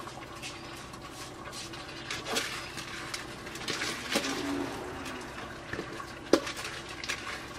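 A metal spoon scraping and tapping against a cooking pot as rice is spread over the chicken, with one sharper knock about six seconds in, over a steady low hiss.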